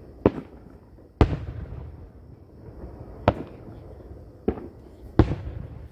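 Aerial fireworks shells bursting, five sharp booms in about five seconds, some trailing off in a low rumble.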